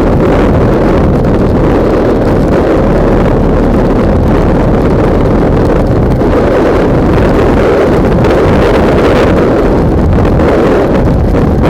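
Loud, steady wind buffeting on the microphone of a camera mounted on a moving bike, drowning out other sound.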